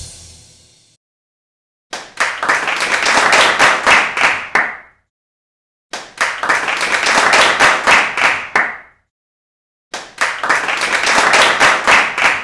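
Applause, dense clapping from a crowd, heard as three separate bursts of about three seconds each. Each burst fades out quickly, with about a second of silence before the next.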